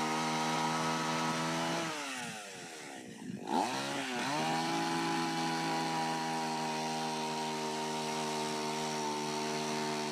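A small motor running at a steady high speed. It slows down about two seconds in, picks back up about two seconds later, and then runs steady again.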